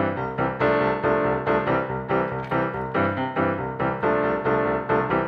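Background music: a keyboard tune with evenly spaced notes, about three a second.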